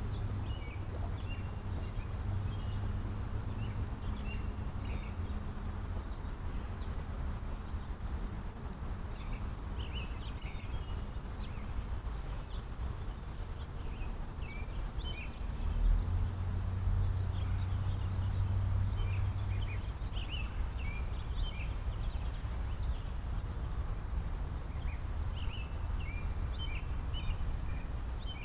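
Small birds chirping in the trees, short high calls coming in scattered clusters, over a steady low hum. About sixteen seconds in there is a low thump, and the hum grows louder for a few seconds after.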